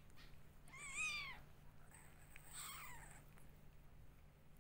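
Newborn kitten mewing twice: a high, wavering cry about a second in, then a fainter, falling one.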